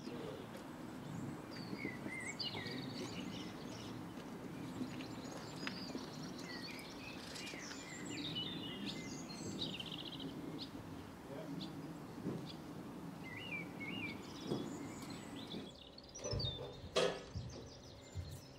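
Songbirds chirping and warbling over a steady low outdoor rumble. Near the end the rumble drops away and a few low knocks and one sharp click are heard.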